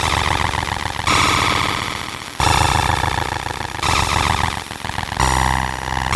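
30 W laser engraver working on aluminum: a buzzing, tonal machine whine that shifts to a new pitch and texture about every second or so as the machine moves through the job.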